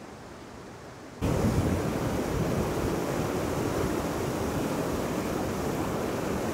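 Rushing water of a fast, rocky river, a loud steady noise that starts abruptly about a second in, after a faint hiss.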